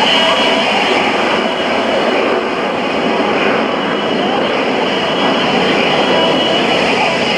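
Steady, loud roar of Blue Angels F/A-18 Hornet jet engines as the jets fly the demonstration.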